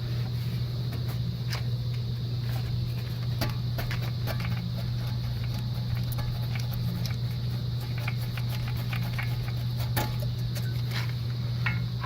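A steady low hum runs throughout, with scattered light clicks and taps of an ABS sensor wire and its clips being worked loose by hand. The clicks are sharpest about ten and eleven seconds in.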